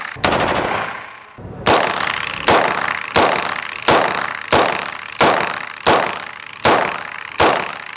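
About ten single shots from an EMTAN MZ-9 9mm carbine fired semi-automatically at a steady pace, roughly one every 0.7 seconds. Each sharp report rings on briefly off the range walls.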